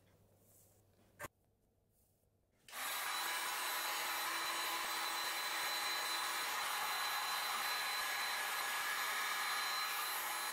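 A single click about a second in, then a handheld electric heat gun switched on and running steadily: the fan's blowing noise with a faint steady whine, as it shrinks heat-shrink tubing over spliced wires.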